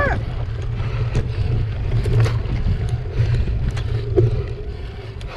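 Mountain bike riding over a rough dirt trail: a steady low rumble of wind and the ride on the bike-mounted camera's microphone, with scattered clicks and rattles from the bike.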